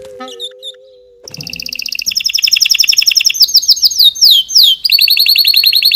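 A bird singing a loud, very fast, high-pitched trill that starts about a second in, with a few downward-sweeping notes partway through.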